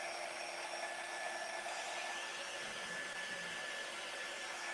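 Handheld electric chalk-paste drying tool (a small air blower, not a heat gun) running steadily as it blows air over freshly applied chalk paste to dry it. It makes an even, quiet whoosh with a faint steady whine in it.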